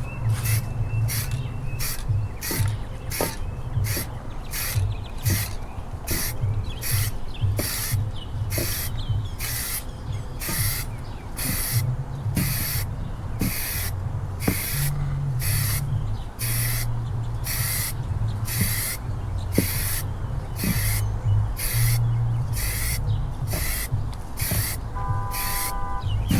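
Paint spray gun hissing in short, regular bursts, about one and a half a second, over a steady low hum. A brief steady tone sounds near the end.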